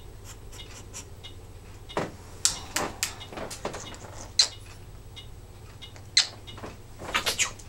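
Timneh African grey parrot on its perch making a handful of short, sharp clicks at irregular intervals, with a quick run of them near the end.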